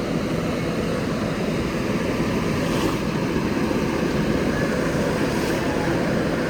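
Steady rushing background noise with a faint low hum.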